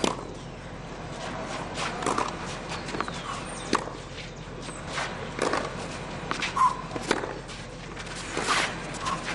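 Tennis rally on a clay court: sharp racket-on-ball strikes, about six of them, coming every second and a half to two seconds as the two players hit back and forth from the baseline.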